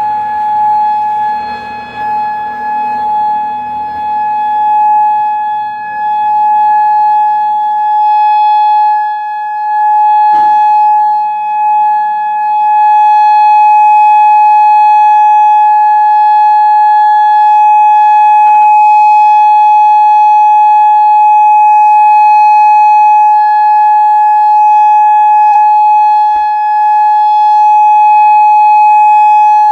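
Federal Signal Modulator 6048 outdoor warning siren sounding its steady Alert signal, one held tone whose loudness rises and falls slightly.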